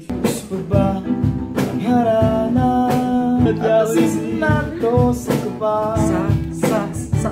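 A man singing with long held notes while strumming chords on an acoustic guitar.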